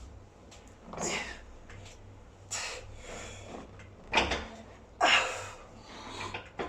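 A set on a pin-loaded weight-stack gym machine: about five short knocks and rushes of noise, spaced roughly a second or more apart, over a low steady hum.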